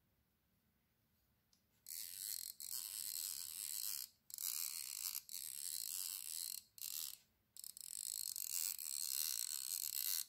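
Handmade aluminium fly reel's click-and-pawl check buzzing as the spool is spun by hand, in four runs with short pauses, the third one brief, starting about two seconds in.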